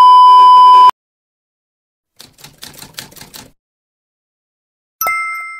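Edited intro sound effects. First comes a loud steady TV test-pattern beep for just under a second, which cuts off sharply. A second later there is a quick run of typewriter-style clicks, and near the end a bell-like chime that fades away.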